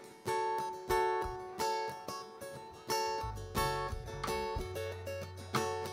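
Live band music: guitar strumming chords in steady repeated strikes between sung lines, with a low bass line coming in about halfway through.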